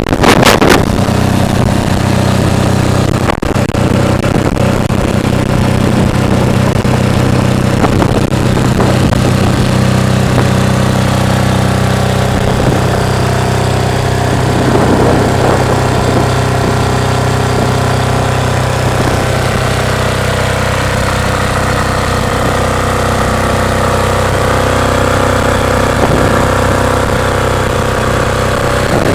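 Enclosed 'silent' diesel generator running steadily on 100% biodiesel, a constant low engine hum with no change in speed. Wind buffets the microphone briefly at the very start.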